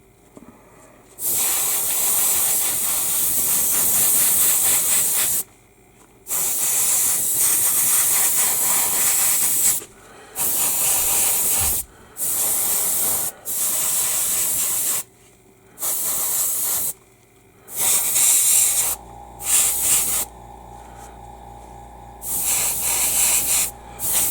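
Airbrush spraying acrylic paint in repeated bursts of hiss, each a second to a few seconds long, with short pauses as the trigger is released. Near the end a steady, quieter hum with a faint held tone comes in between the bursts.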